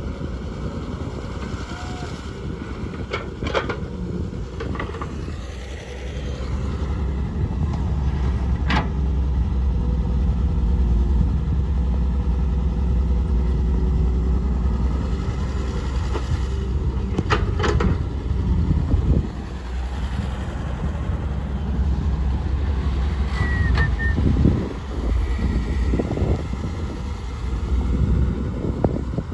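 Heavy diesel machinery running, its engine getting louder about six seconds in and staying under load, with a few sharp metallic clanks.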